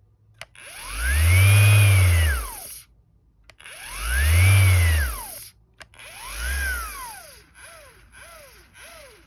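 Faulty MAXXT 5-inch random orbital sander's electric motor pulsing: it spins up and winds back down in two long, loud surges, then a weaker shorter one and three quick faint ones near the end. The sander is malfunctioning, running and pulsing when it shouldn't run.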